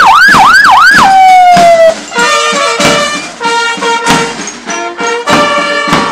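A fire engine's siren wails in quick rising-and-falling sweeps, then cuts off about a second in and winds down in a falling tone. After that a marching band of brass and drums plays.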